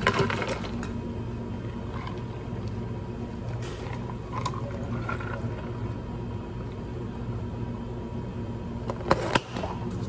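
Ice clattering into a clear plastic cup at the start, then liquid poured over ice in plastic cups, a fruit ade from a plastic pitcher among them, over a low steady hum. A few sharp plastic clicks about nine seconds in as a dome lid goes onto a cup.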